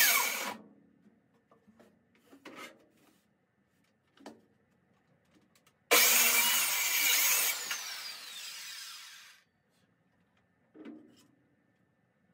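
Handheld circular saw cutting through a wooden board: a short burst right at the start and a longer cut about six seconds in, each followed by the blade winding down with a falling whine. A few light wooden knocks come between and after the cuts.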